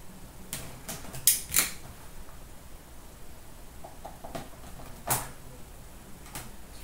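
Plastic shrink wrap being peeled and crinkled off a sealed hockey card box: a few short, sharp crackles and rustles, the loudest just over a second in and about five seconds in.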